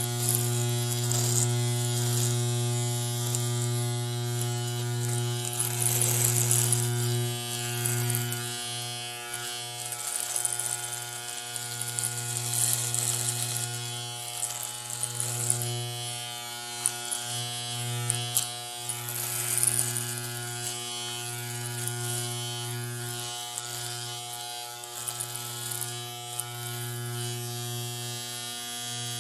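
Electric hair clipper running with a steady buzz, its hum wavering slightly in strength, with a higher hiss swelling and fading every few seconds.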